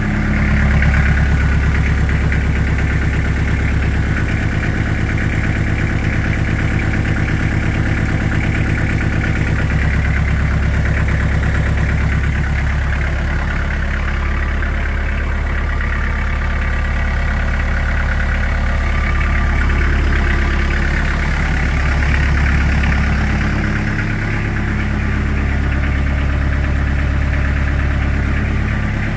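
Daedong 35-horsepower tractor's diesel engine running steadily at idle.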